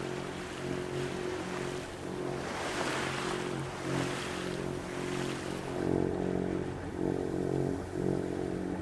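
Sailboat's engine running steadily while motoring, a low drone under a rushing noise that swells and fades a few times.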